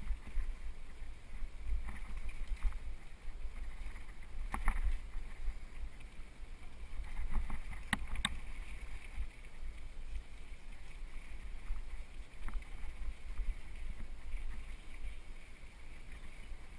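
Low, steady wind buffeting and trail rumble on a camera riding a mountain bike down a dirt trail, with a few sharp clicks and knocks, about four and a half and eight seconds in, as the bike rattles over bumps.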